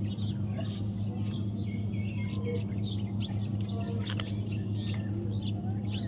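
Parrots chirping in many short, quick calls, some overlapping, over a steady low electrical hum.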